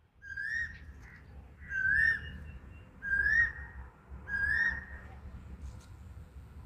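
A high whistled call, each one rising then dipping, repeated four times about a second and a half apart.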